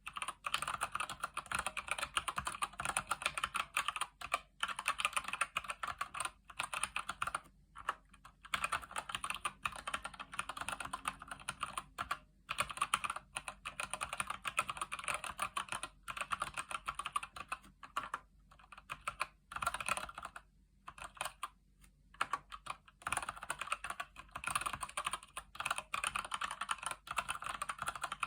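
Fast, continuous typing on a Keychron C1 mechanical keyboard with Gateron Brown tactile switches: rapid key clicks in bursts, broken by brief pauses.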